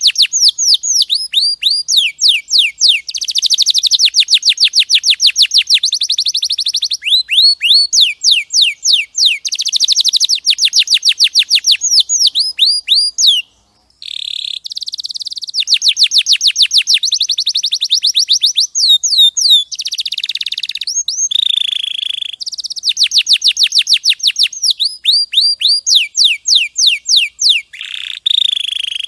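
Canary singing a long, loud song of fast trills, each a rapid run of repeated downward-sweeping notes, switching from one trill to the next every few seconds, with a short break about halfway through.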